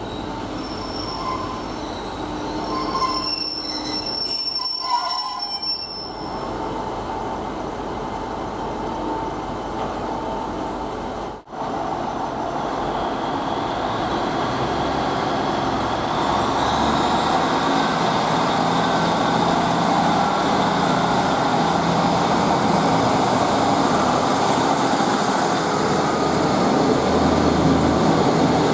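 Class 150 Sprinter diesel multiple unit. In the first seconds its wheels squeal and clank as it runs in. Then, after a brief break in the sound, its diesel engines run under power as it pulls away, with a rising whine and the sound growing louder as the coaches pass close by.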